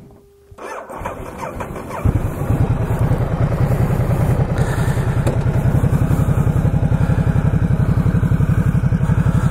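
Ducati Multistrada motorcycle engine being started: the electric starter whirs for about a second, the engine catches about two seconds in, and it then runs steadily with an even low pulse.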